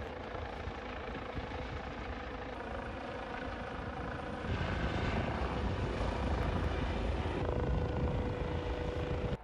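A steady mechanical drone with a low rumble and a faint steady hum, growing louder about four and a half seconds in.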